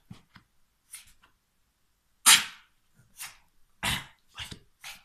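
Small terrier barking in short separate yaps: one loud sharp bark a little past two seconds in, then several quieter ones from about three seconds on.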